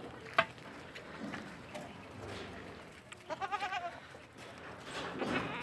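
Goat bleating: one wavering bleat about three and a half seconds in, with another starting near the end. There is a sharp click just before the first second.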